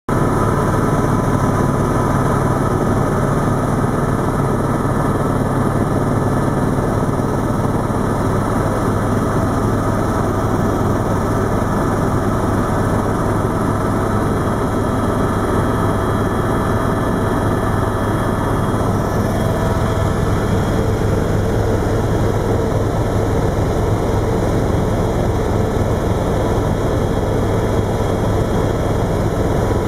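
Tour helicopter in flight, heard from on board: the steady drone of its engine and rotor.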